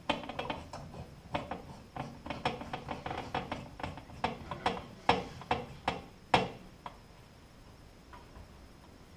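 Light bulbs being screwed by hand into a ceiling light fixture's sockets: a run of quick clicks and scrapes that stops about six and a half seconds in.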